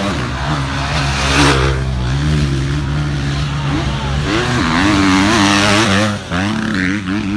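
Motocross dirt bike engines running with a steady drone, then revving up and down repeatedly over the last few seconds.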